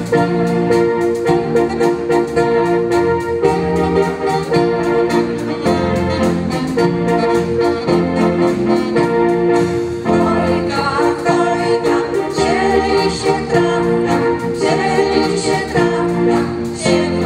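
Live Polish Christmas carol (kolęda) accompaniment: an electronic organ holding steady chords over a regular drum beat. A moving melody line comes in from about ten seconds in.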